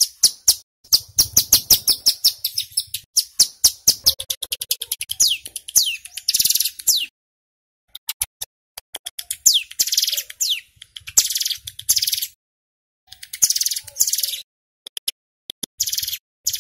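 Male ciblek gunung (a prinia) singing in rapid strings of sharp, high chirps and dense fast trills, the 'bren' song, in bursts of a second or two with short pauses between them.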